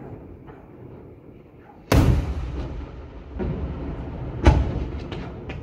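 Aerial firework shells exploding: a loud bang about two seconds in with a long fading rumble, then a second, sharper and louder bang about four and a half seconds in, followed by a few small crackles near the end.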